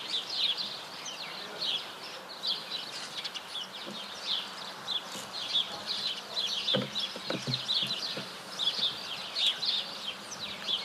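Small birds chirping and twittering in a dense, continuous chorus of short, quick high notes, with a couple of soft low knocks about seven seconds in.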